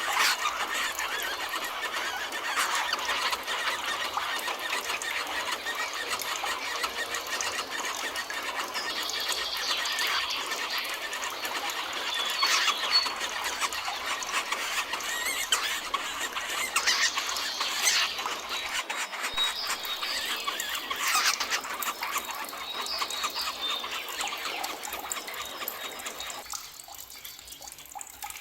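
Forest birds singing in a dense chorus of many overlapping shrill chirps and whistles. The chorus thins out and grows quieter near the end.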